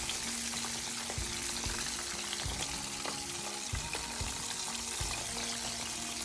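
Flour-coated chicken pieces deep-frying in a pot of hot oil: a steady crackling sizzle, nearly done after almost six minutes of cooking. A few soft low thumps come through it.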